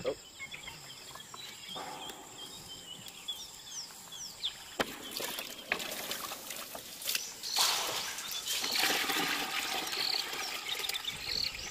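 Water splashing and pouring as a bucket is hauled up a well on a rope. The water starts about halfway through and is loudest a few seconds later, with birds chirping in the first half.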